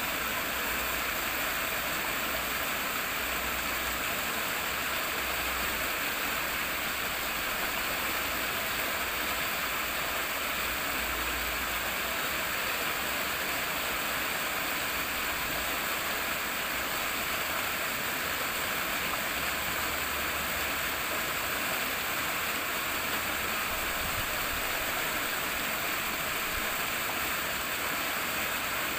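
Rippling, flowing water, a steady rushing sound with no breaks.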